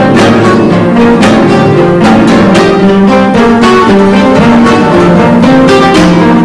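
A large orchestra of classical guitars playing together: many plucked notes over repeated chord attacks, several a second, in a steady rhythm.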